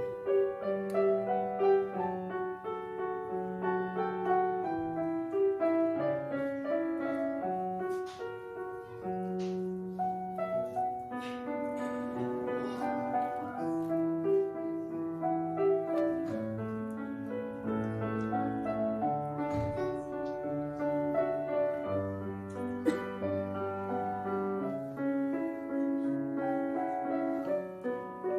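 Background piano music, a melody of notes over lower held notes.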